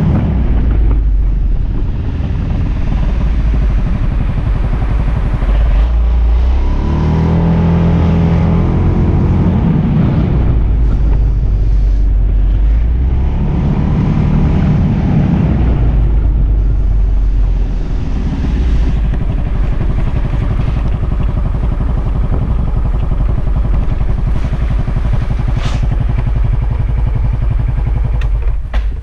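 Suzuki Burgman AN400 maxi-scooter's single-cylinder engine running on the move over a steady rushing noise. The engine note rises twice as it accelerates, and the sound falls away sharply near the end as the scooter stops.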